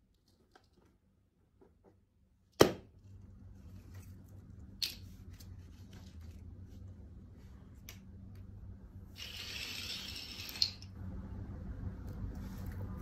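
A rubber balloon popping with one sharp, loud bang about two and a half seconds in, followed by steady low handling noise and, near the end, a few seconds of hissy crackling with another sharp click.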